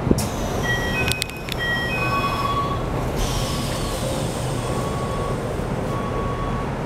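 Keikyu New 1000 series commuter train at a station: a chime of short beeping tones and the doors shutting with a cluster of knocks, then the steady hum of the car interior with faint tones and a falling whine as the train's Toyo IGBT-VVVF inverter starts it moving.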